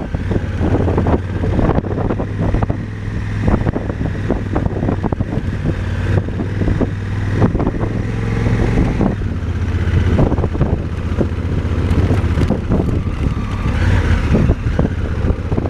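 Motorcycle engine running steadily while riding a rough, muddy dirt road, with frequent knocks and rattles from the bumps throughout.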